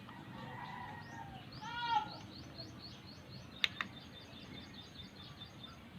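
Birds calling in the background: a brief call near 2 seconds in, then a fast trill of short falling chirps, about five a second, for a few seconds. Two sharp clicks come in quick succession partway through.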